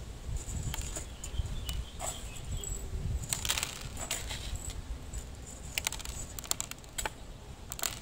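Small gravel being spooned onto the potting mix of a small plastic pot as a top dressing, the grit clicking and rattling in scattered small clicks and a couple of short trickling rasps.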